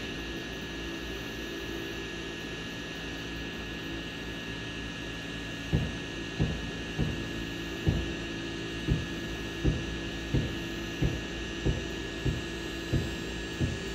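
Steady hum of a flying drone's motors and propellers, with a few fixed tones over a noise bed. From about six seconds in, a string of short low thumps comes roughly every second or faster.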